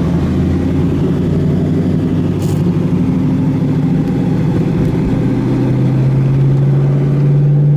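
A New Edge Mustang GT's 4.6-litre two-valve V8 droning through its exhaust, heard from inside the cabin while driving. The exhaust still has the factory H-pipe with two of its catalytic converters in place. About five seconds in, the note deepens and climbs slightly as the car picks up speed.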